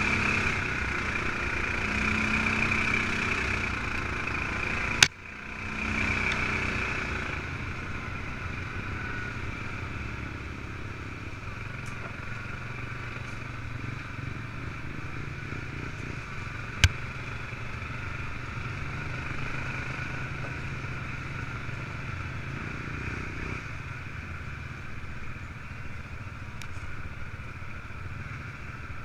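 ATV engine running while riding a bumpy dirt trail, revving up and down over the first several seconds, then running lower and steadier. Two sharp clicks stand out, about five seconds in and again near seventeen seconds.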